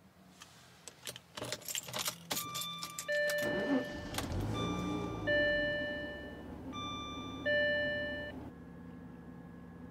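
Keys jangling and a key going into a Jaguar XJ's ignition, then the engine starts and settles to a steady idle. A two-note dashboard warning chime sounds three times over it.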